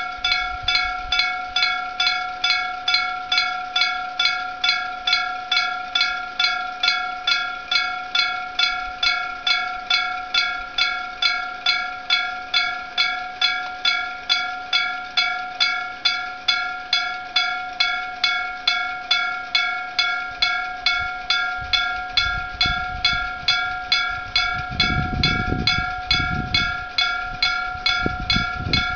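Striker-type (gong) level crossing warning bell, an electric bell struck steadily about twice a second, each stroke ringing on into the next. Over the last several seconds a low rumble joins in under the bell.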